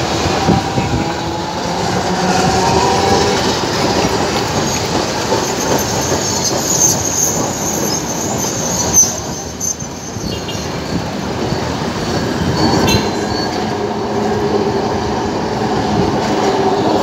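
Two-car Alexandria Raml tram passing close by along street-running track, wheels clattering on the rails. A high-pitched wheel squeal rises about halfway through.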